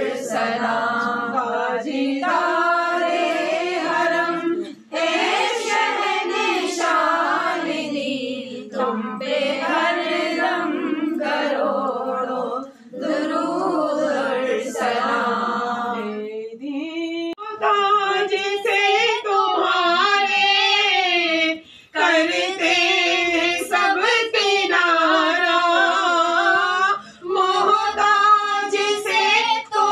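A group of women singing a devotional naat together, unaccompanied, in long phrases with short breaks between them. About halfway through, the melody moves higher.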